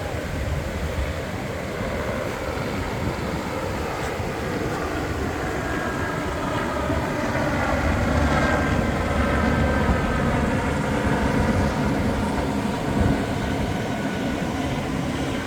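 Ocean surf washing continuously on a beach, a deep rumbling wash that swells in the middle and eases off. A faint steady whine sits over it in the second half.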